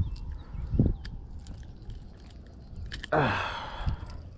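Close handling noise as a hooked bass is held and unhooked from a jerkbait: scattered faint clicks and a short thump, then a louder rustling burst about three seconds in.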